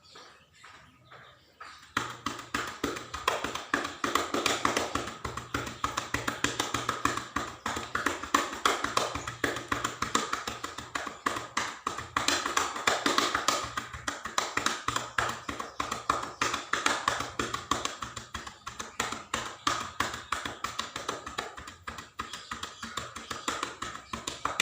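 Chest percussion: cupped hands clapping rapidly and steadily on a patient's back to loosen phlegm. It starts about two seconds in and keeps a fast, even rhythm.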